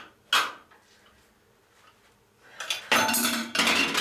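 Metal jar lids and glass yogurt jars being handled: one sharp clink about half a second in, then a stretch of clattering and scraping of lids against glass near the end.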